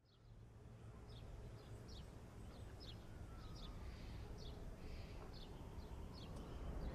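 Quiet house ambience fading in: small birds chirping outside, short high chirps about two a second, over a low steady rumble.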